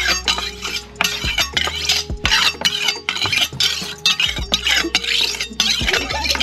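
A large kitchen knife being sharpened on a rough stone ledge: quick rasping strokes of steel on stone, about two or three a second.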